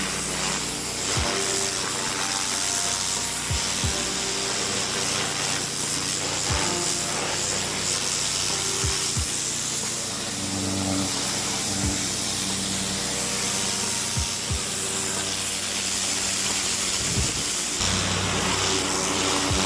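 Background music with a steady beat, over the continuous spraying hiss of a pressure washer's turbo nozzle blasting pavers.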